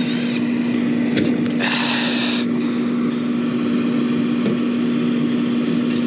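Milwaukee cordless driver whirring briefly as it backs out burner-assembly screws, once at the very start and again for under a second about two seconds in, over a steady machine hum from the running unit.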